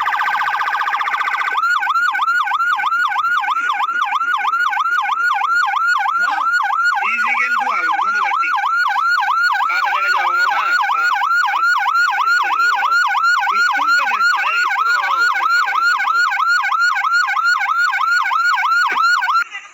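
Electronic siren sounding loudly: a short buzzing tone, then a fast repeating yelp of about three swoops a second that cuts off suddenly near the end.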